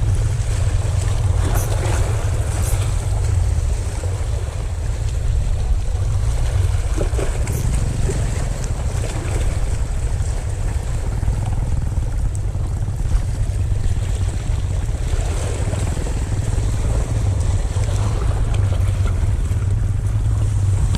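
Wind buffeting the microphone as a steady low rumble, over the wash of choppy sea waves.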